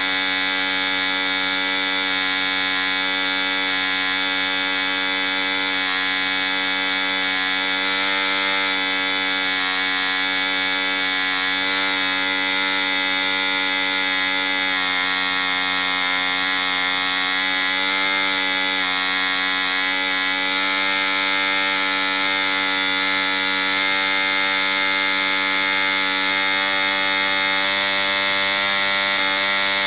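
ED 3.46 cc Hunter model diesel engine, a single-cylinder two-stroke, running flat out on a test stand with an 11x6 wooden propeller at about 6000 rpm. It gives a steady, high-pitched buzz whose pitch wavers slightly.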